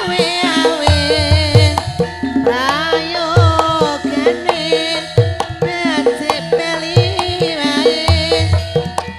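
Javanese gamelan accompanying tayub dance. Metallophones ring out a steady, repeating melody, and kendang hand drums play deep strokes. A woman's singing voice carries over them in high, wavering, sliding ornaments.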